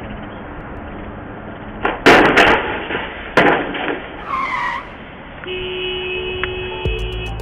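Street traffic noise, then a vehicle crashing into a low railroad bridge: a loud crash about two seconds in, a second bang a second or so later, and a short falling squeal.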